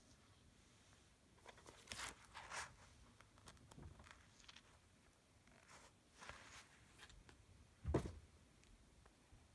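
Paper pages of a paperback book being leafed through, in several short soft rustles, then one dull thump about eight seconds in as something is set down on the table.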